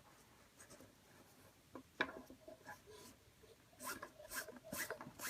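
Nylon paracord rubbing and sliding under the fingers as the knots of a bracelet weave are tightened. Faint: a single click about two seconds in, then a run of short scratchy rubbing strokes from about four seconds on.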